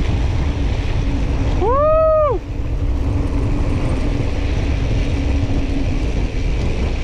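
Wind buffeting the microphone of a handlebar camera, with tyre noise, on a mountain bike ridden fast on a dirt road. About two seconds in, a short high whoop rises and falls.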